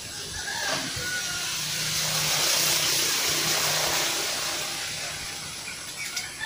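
A road vehicle passing by: its engine and tyre noise swells to a peak about halfway through, then fades away.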